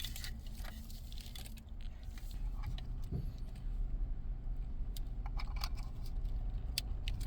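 Light clicks and rattles of plastic wiring-harness connectors being handled and plugged together, over a steady low rumble.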